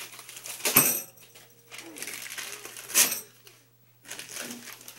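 Two sharp metallic clinks with a short ring, about two seconds apart, from a toy percussion set's small brass cymbals and metal parts knocking together in its wooden crate as the box is handled.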